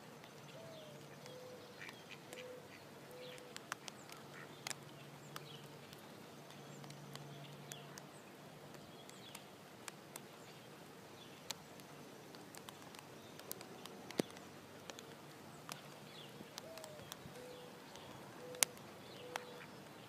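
Mallard ducks giving faint, short, soft calls in small runs of about four, a second in and again near the end, with scattered light clicks.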